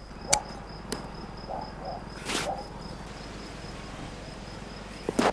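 Crickets chirping steadily, with a sharp snip of large scissors cutting a leather strip on a sheepskin about a third of a second in. A few more clicks and a short rustle follow as the sheepskin is handled, with a quick pair of clicks near the end.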